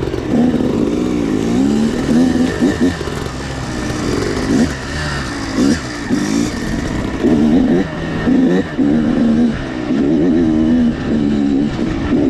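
Dirt bike engine running under changing throttle, its pitch rising and falling over and over as the throttle is opened and closed.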